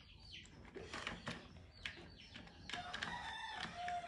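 Small plastic Lego bricks clicking and clattering against each other and a plastic container as they are picked through by hand, in a run of short separate clicks. A faint drawn-out call with a slight fall in pitch comes near the end.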